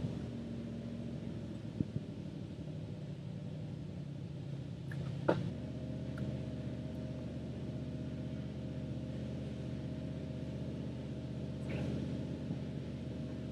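Chevy C65 log truck's engine idling steadily, with a short sharp knock about five seconds in and a lighter click near two seconds.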